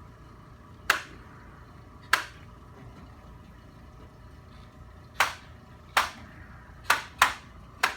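Seven sharp smacks over a quiet room, spaced unevenly: two in the first half, then five coming faster in the second half.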